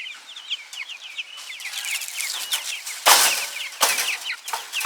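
A flock of young broiler (meat-bird) chicks peeping in many short, high, falling chirps, stressed from being handled. Several brief rustling bursts of flapping and scuffling break in, the loudest about three seconds in.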